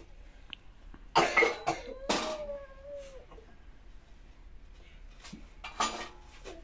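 A person coughing: two loud coughs about a second apart, the second trailing into a brief sound of voice, then a fainter cough near the end.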